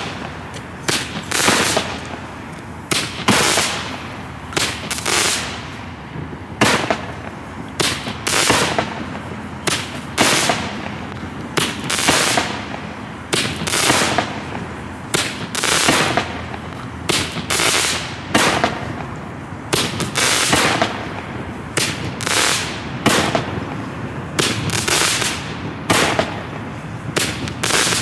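Black Cat Victory Celebration 37-shot fireworks cake firing: a long, steady series of sharp shots and bursting reports, about one or two a second, each with a short fading tail.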